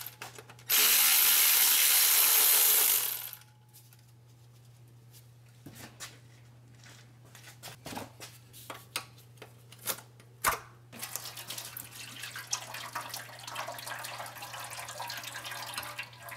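A power tool runs steadily for about three seconds, spinning out a 10 mm transmission oil pan bolt, followed by scattered clicks and knocks of metal handling. From about 11 seconds in, transmission fluid pours steadily from the loosened pan into a drain pan.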